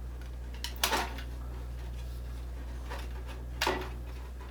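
Two brief scrapes of a snowblower primer bulb's rubber and plastic parts being pried and worked loose by hand, one about a second in and one near the end, over a steady low hum.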